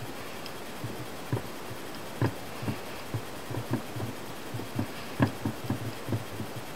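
Scattered light clicks and taps of hands working on a nitro RC car's plastic chassis parts while a small screw is turned in by the fingers. The taps come irregularly from about a second in, with the sharpest ones a little after two seconds and near five seconds.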